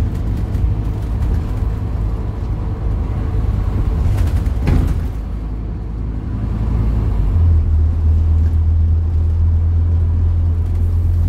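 Scania-engined Alexander Dennis Enviro400 double-decker bus driving, heard from inside the passenger saloon as a steady low engine drone with road noise. There is a brief clatter about four and a half seconds in, and the low engine note grows louder and steadier from about seven seconds in.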